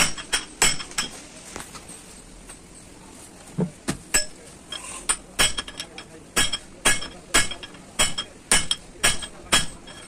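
Hammer striking a flat steel bar held against a gear on an Ashok Leyland truck gearbox mainshaft, each blow a sharp ringing metal clink. A few strikes come in the first second, then a pause of about two seconds, then steady blows about twice a second through the second half.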